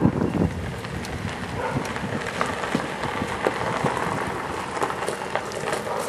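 Car driving slowly along a driveway: a steady hiss of tyres on the road surface.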